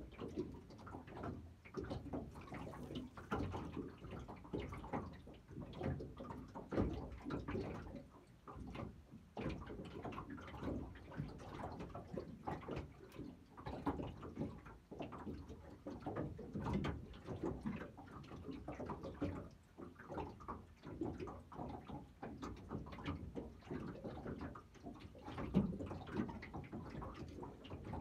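Small waves lapping and slapping against the hull of a small aluminium boat, in uneven soft knocks and splashes.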